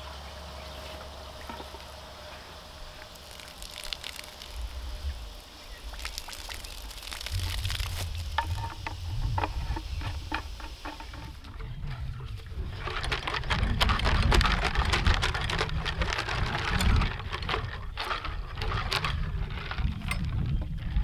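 Water sloshing and rocks rattling inside the pony motor's fuel tank as it is shaken to scour out old gunk. The clattering grows busier and louder about halfway through.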